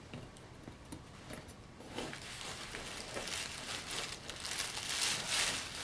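A knife cutting into a large, sticky parami fruit that is hard to cut through: scraping and crackling with small clicks, quiet at first and growing denser about two seconds in.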